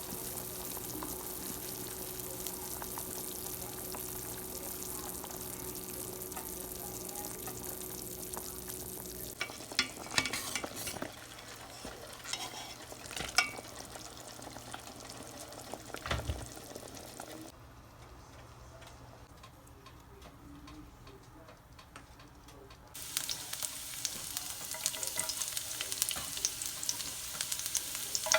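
Food sizzling in hot oil in a pan while it is stirred, with a utensil clattering and knocking against the pan partway through. The sizzle dies down for several seconds, then starts again suddenly and louder.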